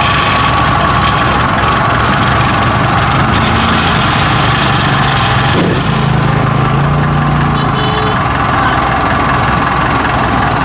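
Engine of a homemade tracked carrier running steadily as the machine crawls along, with a low hum that swells somewhat about halfway through.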